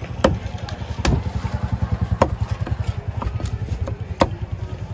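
Cleaver chopping fish on a wooden block, sharp chops about once a second. Under them a small engine idles with a fast, even low throb.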